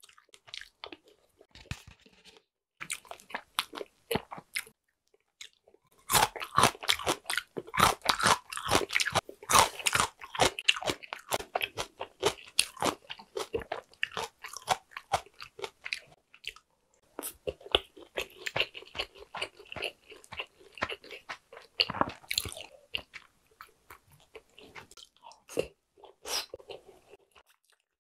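Close-up chewing and crunching of a mouthful of sushi, with wet mouth clicks. It is sparse at first and turns dense about six seconds in, pauses briefly about two-thirds of the way through, then goes on.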